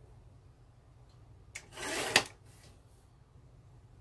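A brief rustle of paper being handled, ending in a sharp tap on the work surface, about halfway through; quiet otherwise.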